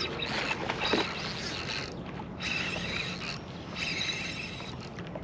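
Fishing reel cranking in line in short spells while fighting a hooked striped bass, a whirring with brief pauses between turns, and a single knock about a second in.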